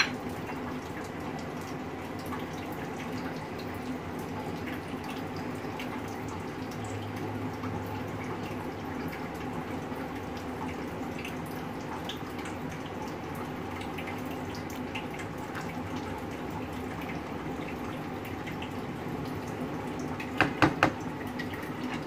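A thick lentil dal (chana and mash) simmering in a pan, bubbling steadily with small scattered pops. Near the end there are three sharp knocks close together.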